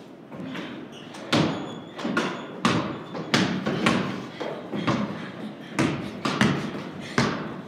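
Basketball bouncing repeatedly on a wooden plank floor, about two sharp bounces a second at an uneven pace, echoing in a large wooden barn loft.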